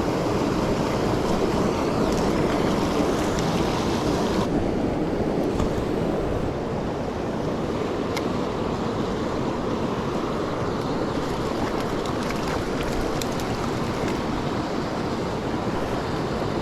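Steady rush of flowing creek water, a continuous even noise with no breaks.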